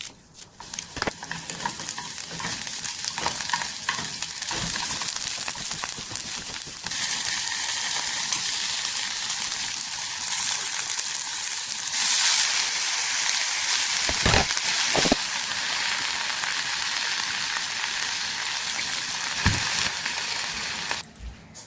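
Food sizzling steadily in a hot frying pan, with a few sharp knocks of a utensil against the pan in the second half; the sizzle cuts off near the end.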